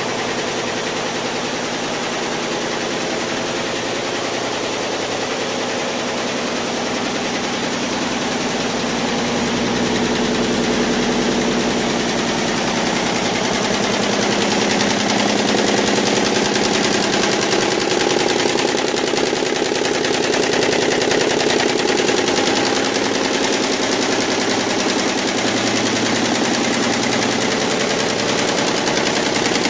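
YBD164 quilting embroidery machine running, its needles stitching at a rapid, steady rate with a continuous mechanical chatter that grows slightly louder about halfway through.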